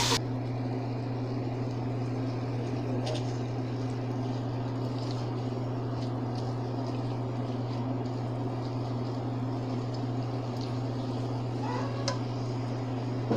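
Mixed vegetables (carrot, peas, corn, green beans) sizzling steadily in hot oil in a pan, with a few light clicks of a silicone spatula stirring them. A steady low hum runs underneath.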